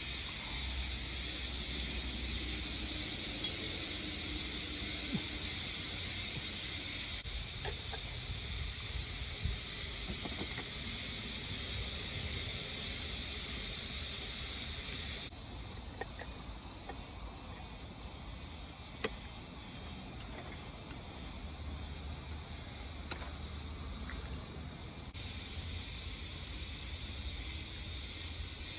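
Steady, high-pitched droning of summer insects in woodland. The drone changes abruptly a few times where the footage is cut, and a few faint clicks can be heard.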